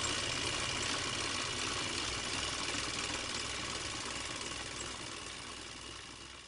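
Steady mechanical whirring of a cine film projector running, fading out over the last couple of seconds.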